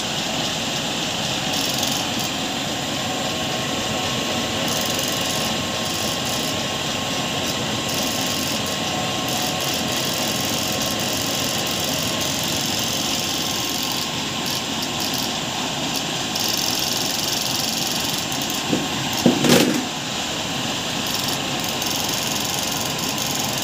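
E-rickshaw electric motor running steadily, driving a large belt pulley on a motor–generator rig: an even mechanical whir with hiss. A brief louder sound breaks in about nineteen seconds in.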